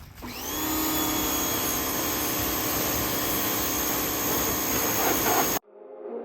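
Pressure washer starting up and running: a whine rises as it comes up to speed, then holds steady over a hiss. It cuts off suddenly near the end, and music takes over.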